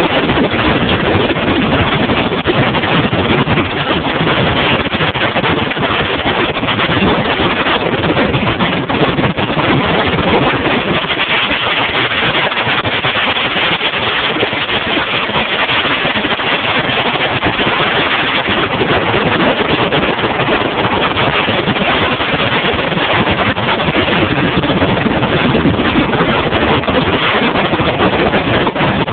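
Bass boat running across open water: a loud, steady rush of outboard motor, wind and water with no break.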